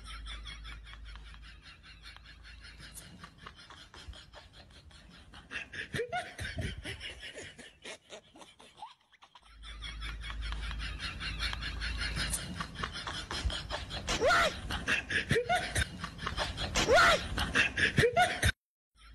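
Hearty laughter in rapid, repeated bursts with a few higher squeals, louder in the second half and cut off briefly twice.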